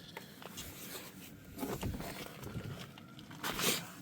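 Faint rustling and light knocks of someone moving about and handling gear, with one louder rustle about three and a half seconds in.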